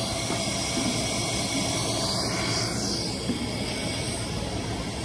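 Steady hissing background noise of a large indoor play hall, without clear separate events.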